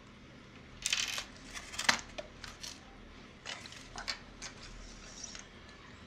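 A toy remote-control car being pulled out of its cardboard box: a run of short scrapes, rustles and light knocks of cardboard and plastic, loudest about one and two seconds in.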